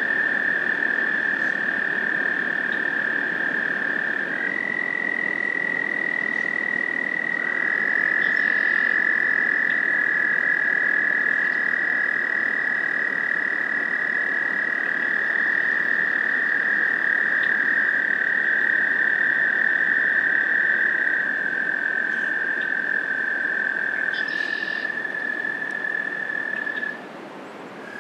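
Chorus of American toads trilling: long, steady, high trills from several males at slightly different pitches, overlapping and handing over from one to the next. These are the males' breeding calls. The chorus drops out briefly about a second before the end.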